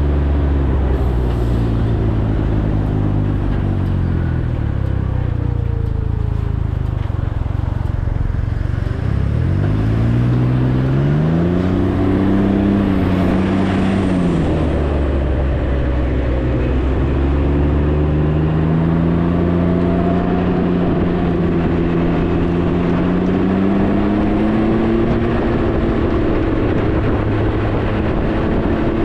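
Can-Am Ryker 900's three-cylinder engine under way. The engine note sinks as it slows over the first several seconds, climbs as it accelerates about nine seconds in, eases off briefly, then rises steadily again and holds.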